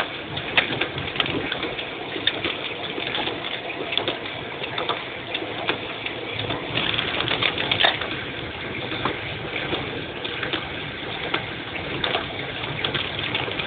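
Heavy rain striking a car's roof and windscreen, heard from inside the moving car: a dense wash of water noise with many sharp drop impacts, over tyres running through water on the flooded road.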